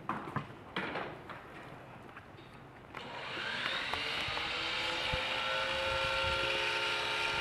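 A few knocks and clatter, then about three seconds in a motor starts up with a whining hum that rises slightly in pitch as it gets louder and then runs steadily.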